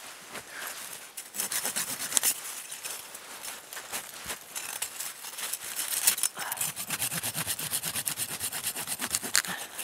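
A small hand saw cutting through branches and briar stems with quick, even back-and-forth strokes, starting about a second in.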